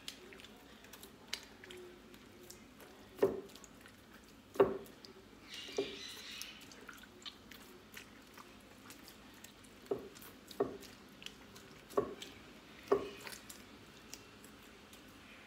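Hands kneading and pressing soft farm butter in an earthenware dish, rubbing thyme water and salt into it: wet squelching with about seven irregular louder squishes and slaps.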